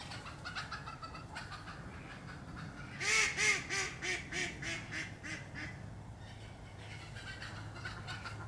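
Waterfowl calling: a run of quick, repeated nasal calls, loudest about three seconds in and fading over the next few seconds, with fainter calls near the start and near the end.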